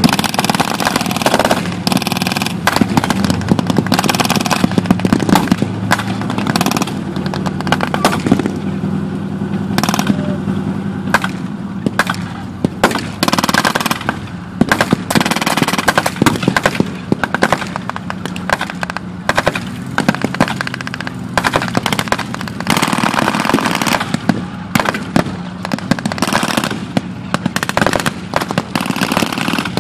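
Blank-fire gunfire from a WWII reenactment battle: rapid machine-gun bursts and scattered single shots, over the steady running of the StuG assault gun's engine under the microphone.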